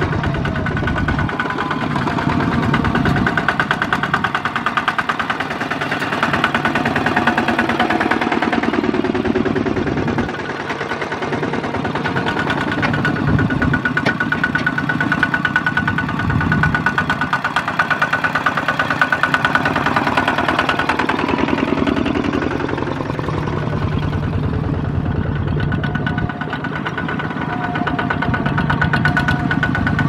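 Small farm tractor engines, from two-wheel walking tractors and a mini tractor, running under load as they pull rice-laden trailers through mud. The sound swells and fades as each machine passes.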